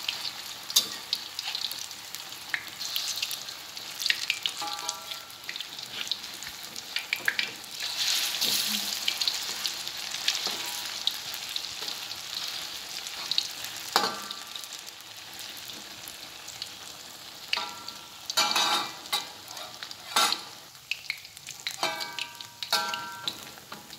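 Tofu, egg and sausage balls deep-frying in hot oil in an aluminium wok: a steady sizzle, with a metal spatula scraping and clinking against the wok now and then as the balls are turned to brown.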